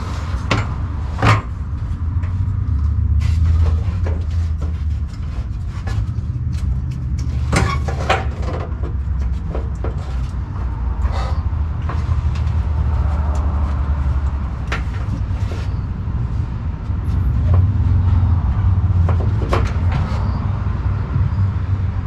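Irregular knocks and clanks of tools and metal parts being handled while a pickup's fuel tank is lowered and taken out, with a sharp knock about a second in, over a steady low rumble.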